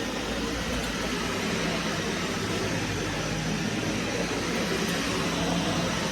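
Vacuum cleaner running steadily, its motor and suction making a constant rushing noise with a faint low hum.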